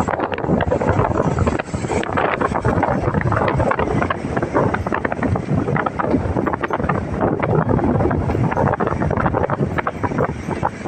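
Strong storm wind rushing and buffeting the microphone, a loud continuous rush broken by rapid crackling gusts.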